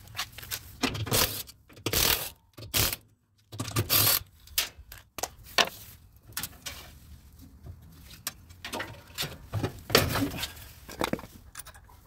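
Metal parts and fasteners being handled under an upturned top-load washer: irregular clicks, knocks and short scrapes as the cover over the transmission is worked loose and lifted off.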